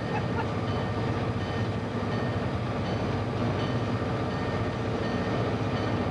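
Diesel freight locomotive under way, heard from inside its cab: a steady engine drone with the rumble of the wheels on the rails.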